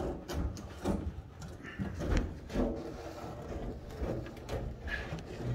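Emery cloth rubbed by hand along the edge of a Cessna 150's aluminium flap track bracket, in short irregular strokes with small knocks, polishing the spot where the flap roller sticks.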